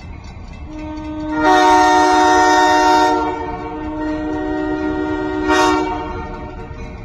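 Sandcast Holden K3L three-chime air horn on a locomotive sounding its chord. It swells about a second in, blows full and hard for about a second and a half, then holds more softly with one short hard blast near the end, over a low rumble.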